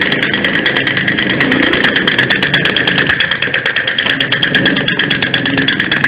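Battery-powered Angry Birds drumming toy running: a motor whirring steadily under a fast, even rattle of sticks beating the little drum.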